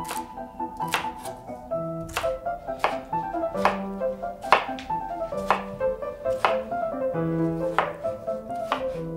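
Chef's knife chopping vegetables on a plastic cutting board, with sharp knocks coming irregularly about once a second, over piano background music.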